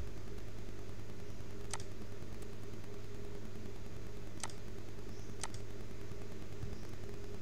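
Three sharp computer mouse clicks, the second and third about a second apart, over a steady low hum.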